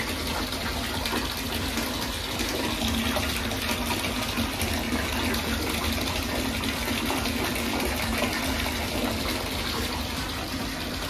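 Bath tap running full, water pouring steadily into a filling bathtub.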